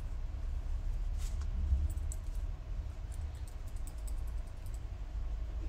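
Paper being handled and pressed down on a craft table: faint small clicks and a brief rustle about a second in, over a steady low hum.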